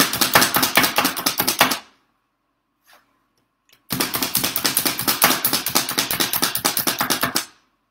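Pampered Chef Food Chopper, a spring-loaded plunger chopper, pumped rapidly on chocolate: fast clacking, about five or six strokes a second, in two bouts with a pause of about two seconds between.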